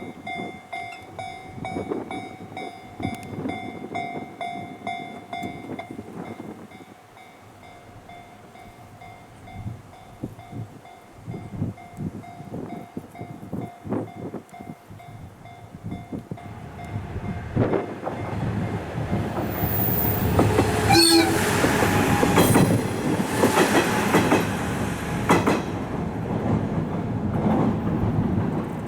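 Level-crossing warning bell ringing in a steady repeating ding, stopping about six seconds in. From about halfway, a diesel railcar comes up loud and passes, sounding its horn briefly with wheels clattering over the rail joints.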